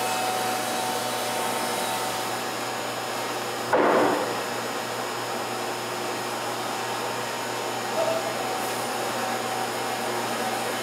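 Wood-Mizer LT50 band sawmill running through a long cut with its dust collection going: a steady machine rush with a few faint steady tones. A brief, louder sound breaks in about four seconds in.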